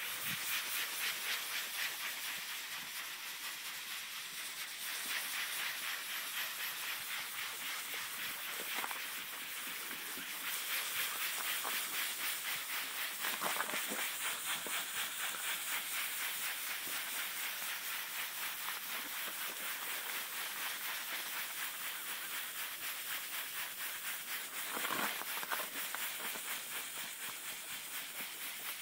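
A cloth rubbing gritty lens polish back and forth over a plastic car headlight lens: a steady, rapid, rhythmic scrubbing hiss.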